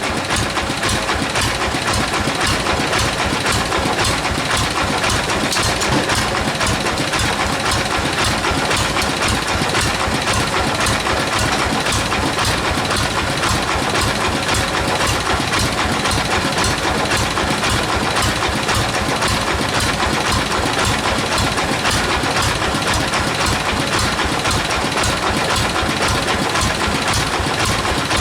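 Sawmill machinery running steadily: an engine-driven saw, a dense even noise with a fast, regular pulse underneath.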